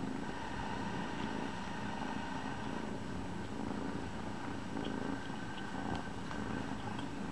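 Kitten purring in a steady, continuous low rumble.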